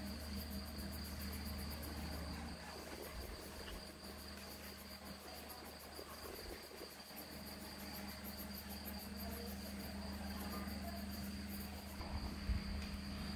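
Crickets chirping steadily in the background, a fast even pulsing with a thin high ring, over a low steady hum. A colored pencil scratches softly on paper as a child colours.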